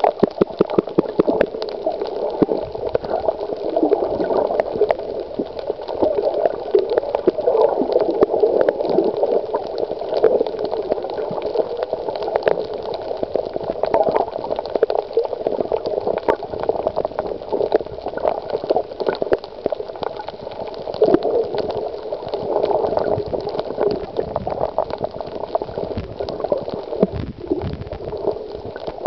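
Underwater water noise picked up through a camera's waterproof housing: a steady, muffled bubbling and gurgling, thick with small clicks and crackles.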